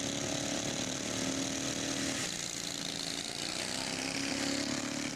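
Small single-cylinder engines of racing riding lawnmowers running hard down the track, a steady engine drone that drops away about two seconds in and comes back.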